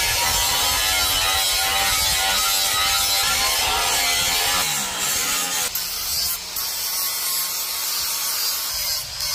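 Electric angle grinder working steel, its motor whine wavering in pitch as it is pressed into the blade. About six seconds in the sound thins to a lighter, steady hum with a few short scraping strokes.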